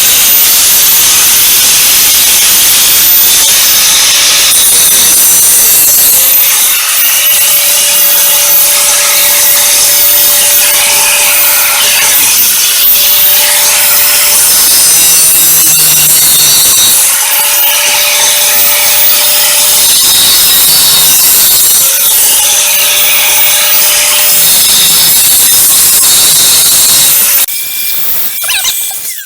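DeWalt DWE4011 4-1/2" angle grinder running loud under load, grinding against a workpiece, with a steady whine that comes and goes several times. It dies away near the end.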